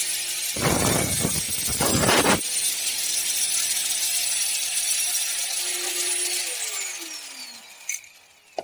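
Angle grinder with its disc biting into a metal tube for about two seconds near the start, then spinning free with a steady high whine. Near the end it is switched off and winds down, its pitch falling.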